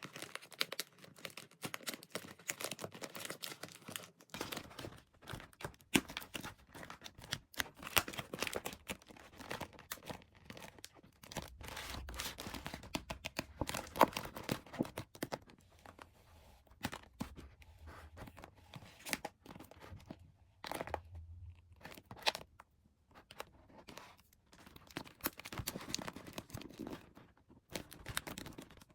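Toy packaging being handled by hand, torn and crinkled in a rapid, irregular run of crackles and scrapes, with a few short pauses.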